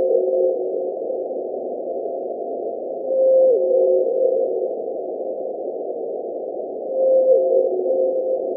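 Blue whale calls from a seismometer recording, sped up into hearing range: three drawn-out tones, each holding a note then stepping down in pitch, about three and a half seconds apart, over a steady hiss.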